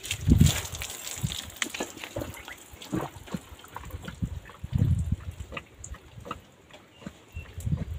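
Water from a hose splashing onto a Kathiyawadi mare's coat in the first second or so, then the mare drinking from a water trough: wet slurps and a few low gulps at intervals.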